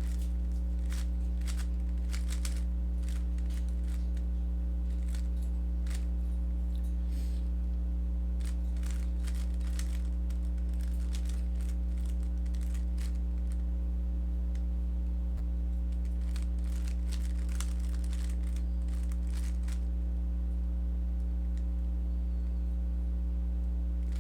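Rubik's cube being turned through algorithms: quick plastic clicks and clacks of the layers in irregular flurries with short pauses, over a steady low electrical hum.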